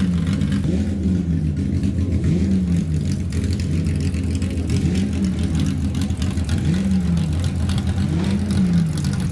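Classic racing car engine blipped repeatedly, its pitch rising and falling about every second and a half, over a steady low engine hum.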